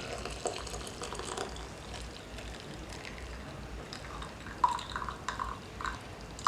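Hot herbal decoction being poured through a strainer into a drinking glass, a steady stream of liquid filling it. Near the end come a few short taps.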